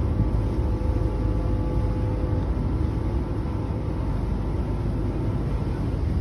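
Steady low rumble of a ferry's engine. Faint steady tones sit above it and fade out about two and a half seconds in.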